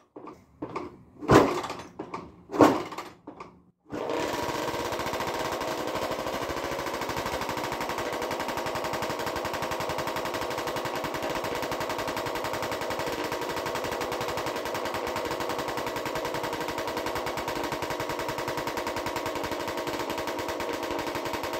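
Suzuki RM250 single-cylinder two-stroke dirt bike kicked over twice, then firing about four seconds in and running steadily at a fast, even idle on its first start after an engine rebuild. It has a straight-piped exhaust and runs very loud.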